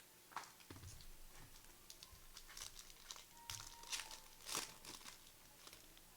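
Faint crinkling and tearing of foil trading-card pack wrappers being opened and handled, in scattered short crackles.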